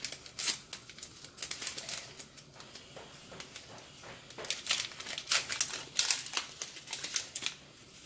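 Paper tea-bag sachets and tea bags crinkling as they are opened, the bags pulled out and folded by hand. The short, scattered rustles come thickest in the second half.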